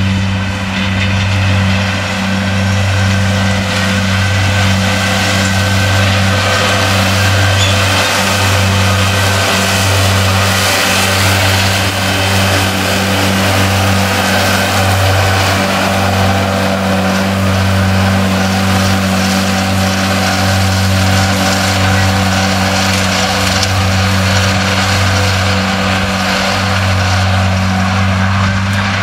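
New Holland T7030 tractor running steadily at working speed, driving front and rear disc mowers through standing grass: an even, unbroken machine drone.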